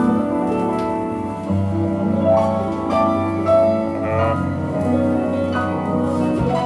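Instrumental music playing from a vinyl test record on a Yamaha P-27 direct-drive turntable; the owner calls the record very scratched and staticky.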